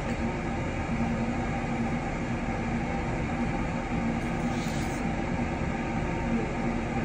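Steady mechanical drone with a constant low hum.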